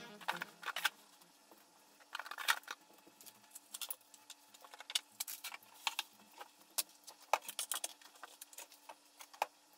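Faint, scattered clicks, clatters and rustles of household waste being handled and dropped into plastic kitchen bins, quick and irregular as in sped-up footage, over a faint steady hum.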